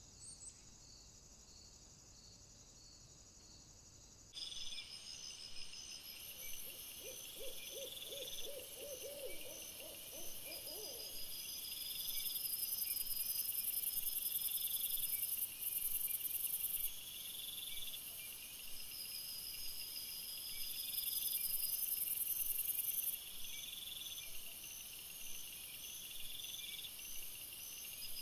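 Night insects chirping in steady, rhythmic high pulses, louder after about four seconds in. About a quarter of the way through, a quick run of about a dozen short, low calls sounds over them.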